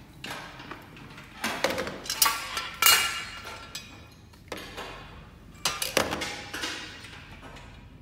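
Aluminium shelf rails and metal end brackets knocking and clinking against each other and the tile floor as they are handled, in a few irregular clusters of hits with a short metallic ring, the loudest about three seconds in.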